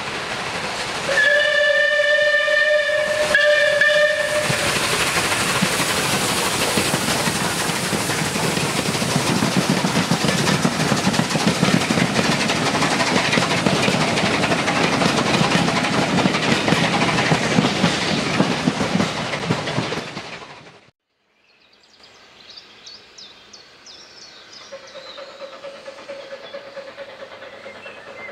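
A steam locomotive's whistle sounds in two blasts, a longer one and then a short one, as Bulleid Battle of Britain class no. 34059 approaches. The locomotive and its train of coaches then pass close by with loud, steady noise from the exhaust and wheels. About twenty seconds in the sound cuts off, and a much quieter stretch follows with a faint steady tone.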